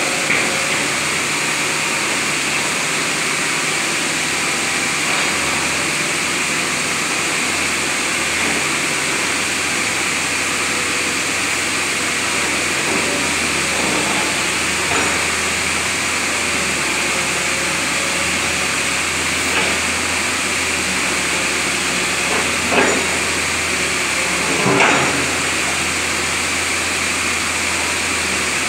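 Amphibious excavator's diesel engine running steadily under work as the long-reach arm swings and digs: a constant low hum under an even hiss. Two brief knocks stand out near the end.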